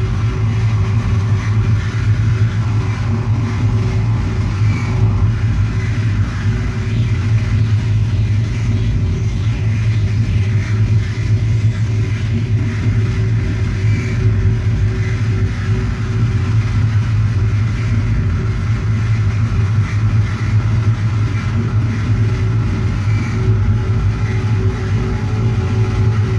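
Live post-industrial dark ambient electronics through a club PA: a loud, steady low drone with sustained tones and hiss layered above it, without any beat.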